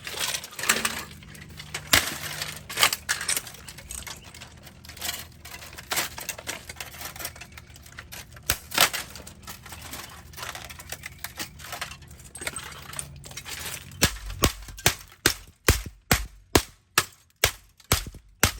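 An HP laptop being smashed apart: irregular knocks, cracks and clatter of breaking plastic and metal. Near the end these give way to a steady run of heavy blows, about two a second.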